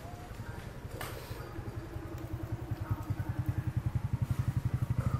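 Motorcycle engine running with a fast, low pulsing beat, growing steadily louder. A sharp click about a second in.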